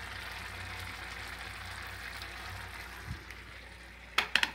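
Rice simmering in a pot, a steady soft bubbling hiss, with a small knock about three seconds in and a few sharp clicks near the end.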